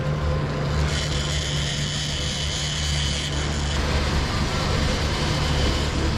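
Fishing boat's engine running steadily with a low hum. A high, thin whine joins about a second in and stops just before four seconds.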